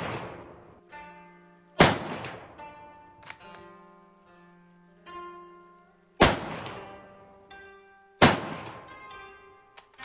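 Three rifle shots from an Italian-made Type I bolt-action rifle in 6.5x50 Japanese, each sharp crack ringing off. The first is about two seconds in, the others about four and six seconds later. Plucked-string music plays underneath.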